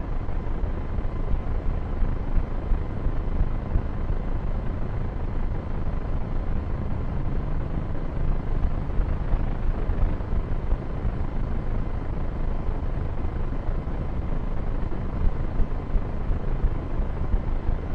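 Wind buffeting the drone camera's microphone: a steady low rumble with uneven gusty peaks.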